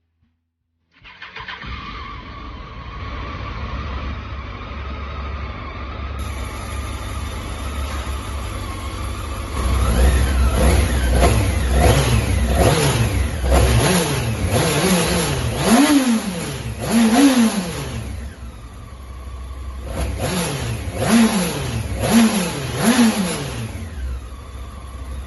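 Honda CBR954RR's inline-four engine running steadily, then revved in a series of short throttle blips, about six in a row and then three more, before settling back to idle.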